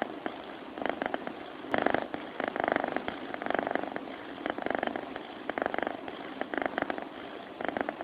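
Sleeping cat breathing with a buzzing, rattly snore-purr close to the microphone, one buzz on each breath, about one a second.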